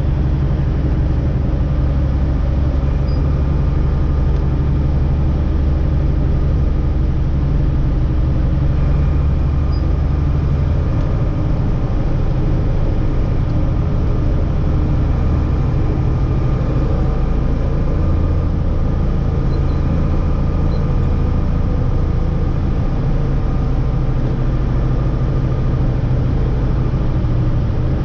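Mercedes-Benz Unimog 1250's diesel engine running steadily as the truck drives, a continuous deep drone. Its low note shifts a little about a third of the way in.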